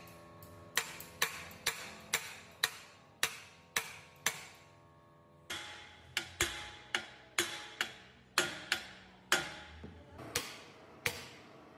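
Repeated hammer blows on metal, roughly two a second, each leaving a ringing tone, with a pause of about a second around the middle.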